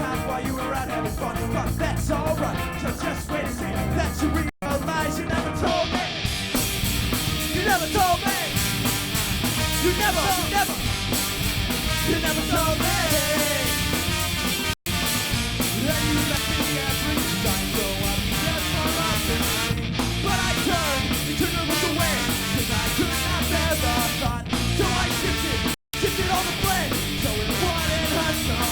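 Live ska-punk band playing loudly, with full drums, bass and guitars. The sound drops out completely for a split second three times.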